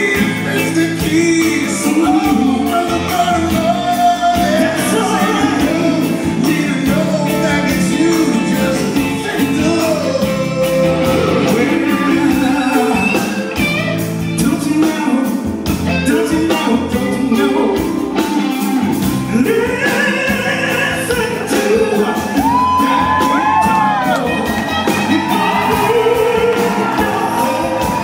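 Live band music with a male lead vocal: electric guitars and a drum kit keeping a steady beat under a singer's gliding, held phrases, heard in a large hall.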